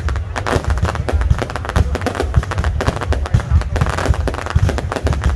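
Fireworks display: a dense, near-continuous run of bangs and crackles over deep booming thumps.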